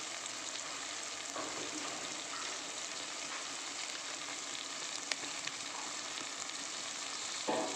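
Chopped onion and tomato frying in coconut oil in a pan: a steady sizzle, with one light click about five seconds in.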